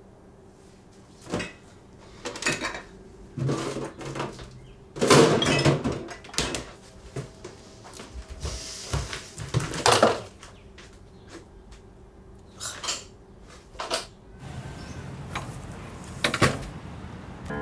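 Kitchen handling sounds: a string of knocks, clatters and rattles as a cupboard and dishes or other things are moved about, the loudest about five to six seconds in and again around ten seconds, with a short hiss just before the second.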